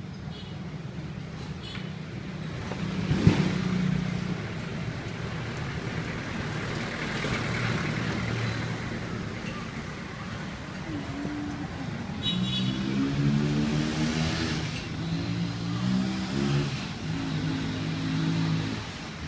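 Street traffic: motor vehicles running, a car pulling in and parking close by, with one sharp knock about three seconds in.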